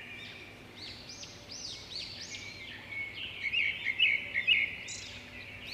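Birds chirping: a string of short, arching high chirps over a faint steady high tone, with a busier cluster of quick chirps a little past the middle.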